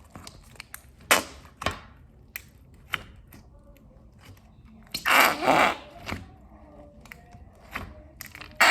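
Red slime squished and pressed in its tub to make fart noises: a few small sticky clicks, then a loud squelching burst about five seconds in and another starting near the end.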